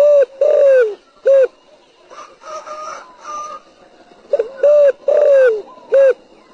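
Spotted dove cooing: two phrases of low hooting coos about four seconds apart. Each phrase ends in a long falling coo and then a short final note.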